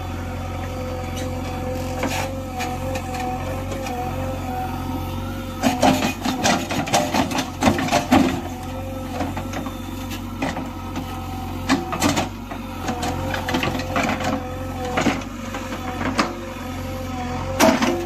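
JCB 3DX Xpert backhoe loader's 49 hp diesel engine running steadily under hydraulic load while the rear bucket digs. Rapid clattering knocks from the bucket working the soil come in a cluster about six to eight seconds in, with a few single knocks later.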